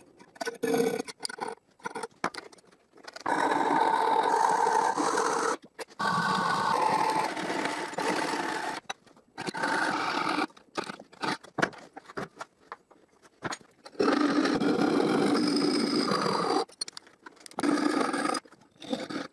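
Marquetry (fret) saw cutting aluminium sheet: rasping saw strokes in stretches of a second or more, broken by short pauses.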